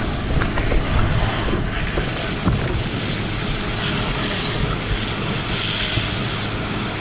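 Steady rushing of a fire hose stream being sprayed into a burning house, over a low rumble, with a few sharp cracks in the first half.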